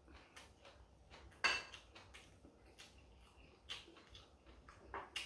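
Metal chopsticks clicking against small ceramic side dishes while someone eats: one sharp clink about a second and a half in, then a few lighter taps near the end.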